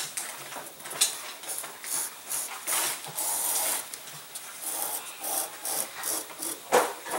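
Razor plane shaving a bevel along the leading edge of a balsa glider wing: a run of short scraping strokes, with one longer stroke about three seconds in.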